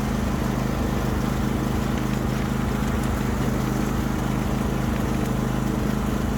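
Small farm utility vehicle's engine running steadily at an even speed, with a constant low hum.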